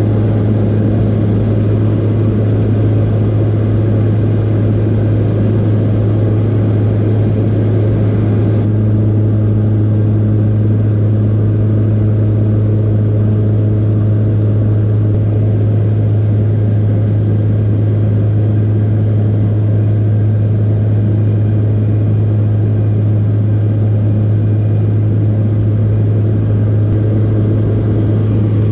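Steady, loud drone of a high-wing propeller plane's engine and propeller in cruise, heard from inside the cabin as a strong low hum under a rushing wash. Some of the higher hiss drops a little about nine seconds in.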